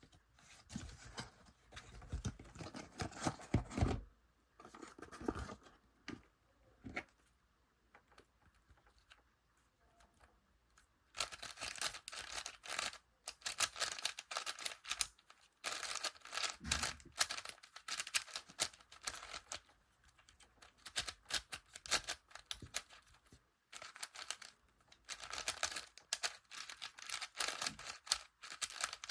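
Plastic packaging being torn open and crinkled by hand, in bursts of dense crackling with short pauses between.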